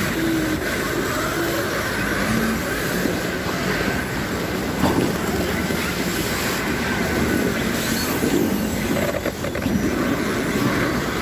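Heavy truck diesel engines running steadily under load as a loaded truck and trailer roll slowly over packed snow, with a faint steady high squeal on top.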